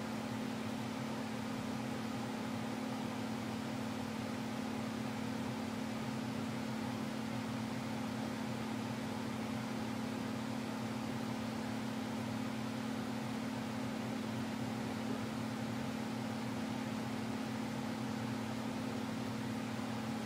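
Box fan running: a steady motor hum over an even hiss of moving air, unchanging throughout.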